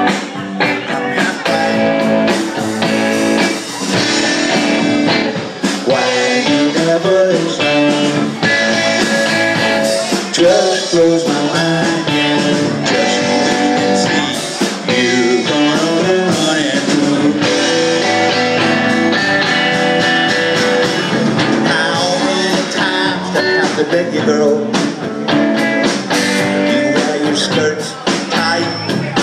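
Live rock band playing: electric guitar, electric bass and drum kit, with a lead guitar line of bent, sliding notes through the middle.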